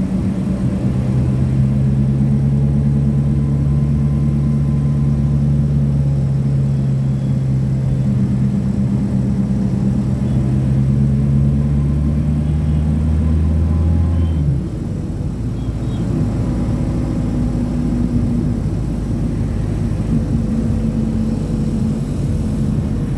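Steady low engine and road drone of a moving vehicle heard from on board. About fourteen seconds in, the deep engine note cuts out and the drone turns lighter and a little quieter.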